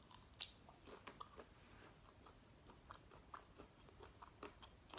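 Faint chewing of food, a run of small irregular mouth clicks.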